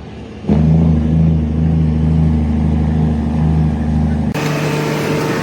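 An engine running steadily with a low hum, cut off abruptly about half a second in and again about a second before the end.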